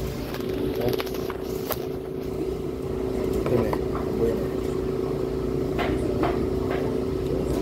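A steady mechanical hum with a few light clicks and knocks over it.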